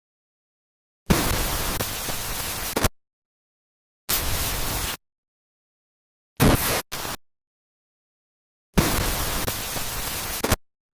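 Looping sound-effect track of harsh static-like noise bursts, each cutting in and out abruptly with dead silence between them. A burst of about two seconds comes about a second in, a shorter one about four seconds in and two quick blips around six and a half seconds, then the two-second burst repeats near nine seconds.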